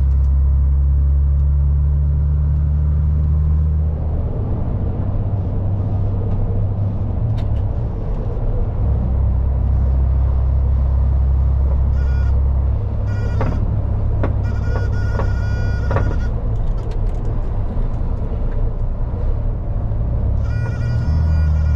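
MAN lorry's diesel engine running under way, a heavy low drone whose pitch steps down and up several times as the gears are changed. Faint music comes in over it in the second half.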